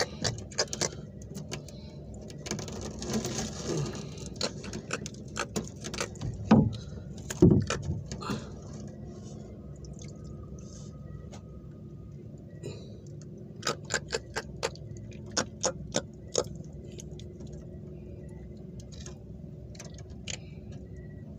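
Knocks, clicks and rattles of a freshly caught fish being landed and unhooked by hand in a small boat. There are two loud thumps about seven seconds in and a quick run of sharp clicks about two-thirds of the way through, over a steady low rumble.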